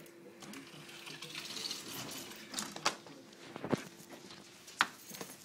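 Rustling and a few sharp knocks from a phone being handled close up, over a faint steady hum that stops about three and a half seconds in.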